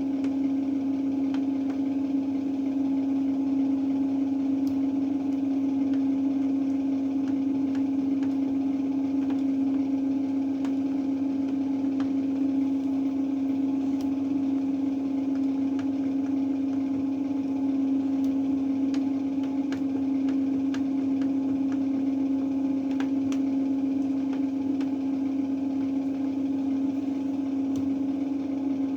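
Beko washing machine running with a steady motor hum, one even tone throughout, with faint scattered ticks.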